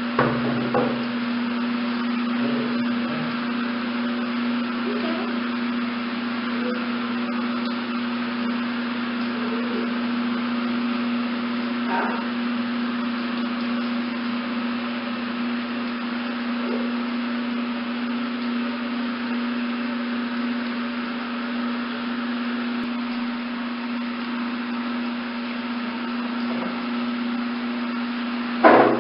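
A steady mechanical hum holding one constant low tone, with a faint knock partway through and a louder knock near the end.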